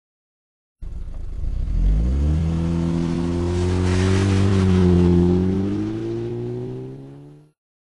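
Audi TT's engine accelerating hard up a dirt road, with tyres on loose gravel. The pitch climbs steeply about a second in, then holds roughly steady with small rises and dips, and the sound fades before cutting off abruptly near the end.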